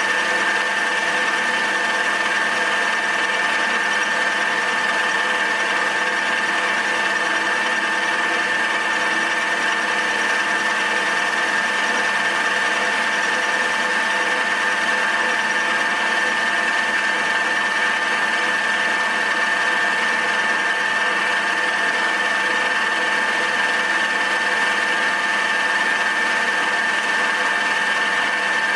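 Milling machine running steadily with a constant whine, its cutter taking a very light facing pass that is barely touching the work.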